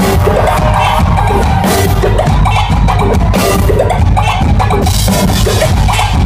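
Live kuduro dance music played loud over a concert PA: heavy bass and a steady drum-kit beat.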